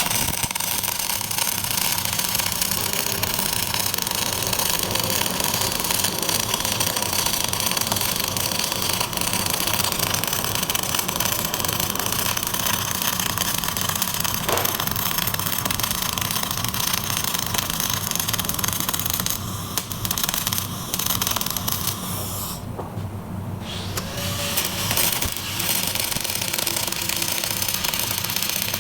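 Welding arc burning on steel: a steady loud hiss with a low hum under it, breaking off for about a second and a half near the end before it starts again.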